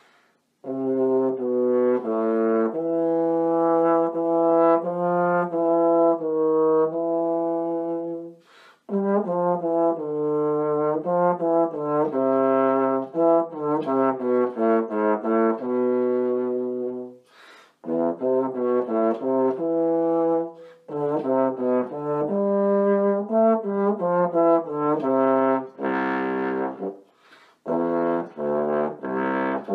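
Trombone played through a 3D-printed 1.5G mouthpiece: phrases of separate low-register notes, with short pauses about 8 and 17 seconds in and again near the end. From low C down, this mouthpiece is a little more difficult to play on.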